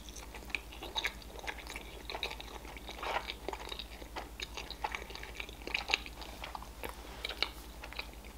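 A person chewing a mouthful of sushi roll with the mouth closed: irregular small wet clicks and smacks, several each second.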